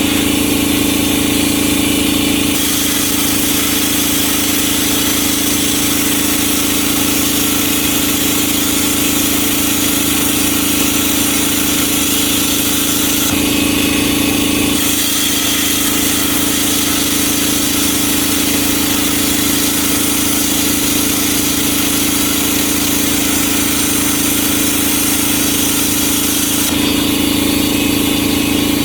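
Plasma cutter cutting slots in 1/8-inch steel plate: the hiss of the cutting arc and air runs in two long cuts with a short break near the middle, over a constant low machine hum.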